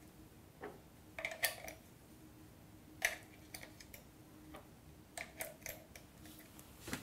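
AA rechargeable batteries being pushed and clicked into the plastic slots of a Duracell Value Charger: short clusters of sharp clicks and taps, three or so, spaced a couple of seconds apart.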